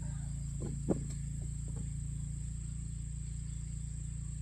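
Insects chirring in one steady high-pitched tone, over a steady low hum, with a few brief knocks about a second in.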